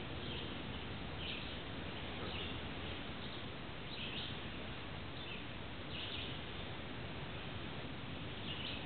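Short, high bird calls repeated roughly once a second, with a longer pause near the end, over a steady hiss of background noise.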